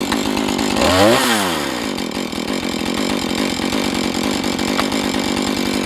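Husqvarna 435 two-stroke chainsaw running steadily, with a brief swoop in pitch about a second in.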